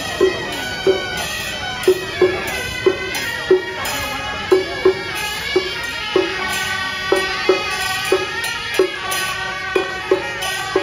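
Traditional Taiwanese procession band playing: suona horns carry a loud, sustained melody over drum strokes that fall about twice a second.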